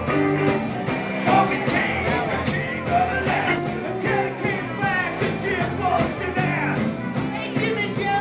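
Live rock-and-roll band playing an upbeat Christmas number, electric guitar and band under lead vocals singing.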